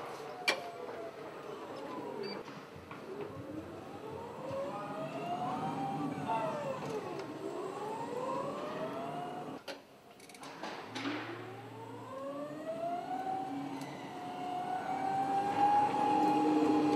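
Battery-electric drive motor of an Atlet Tempo PPL low-level order picker whining, its pitch rising and falling again and again as the truck speeds up and slows down. A short click about half a second in.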